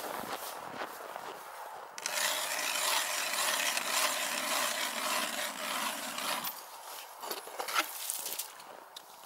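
Hand ice auger drilling a hole in the ice: a few footsteps in snow, then from about two seconds in a continuous scraping grind as the blades cut, breaking into shorter separate scrapes near the end.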